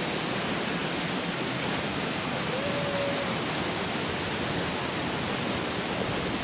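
Steady rush of a waterfall, an even roar of falling water with no breaks.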